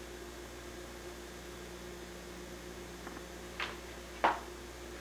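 Steady electrical hum with faint room noise. A short click comes about three and a half seconds in, and a sharper, louder click follows a little after four seconds.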